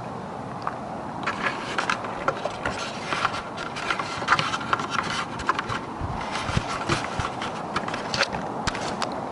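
A playing card, held against the bicycle wheel by a C-clamp, clattering on the spokes in rapid irregular clicks while the bike rolls, over a steady hiss of tyres on the gravel trail.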